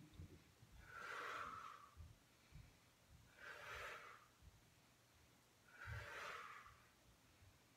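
A woman's forceful breaths out through the mouth, three short soft hisses about two and a half seconds apart: deep exhales on each crunch lift of a Pilates ab exercise.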